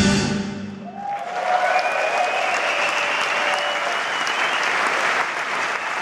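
A live band's closing note dies away in the first second, then a large audience applauds, with scattered cheers and whistles over the clapping.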